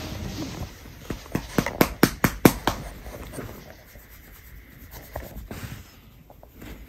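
A hand rubbing and scratching a small dog's fur as it lies on a duvet, with bedding rustling. About a second in comes a quick run of sharp clicks or taps, then softer rustling.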